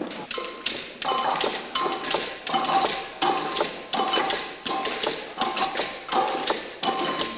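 Hand drums and small percussion playing a steady, repeating rhythm of sharp strokes, several of them ringing briefly.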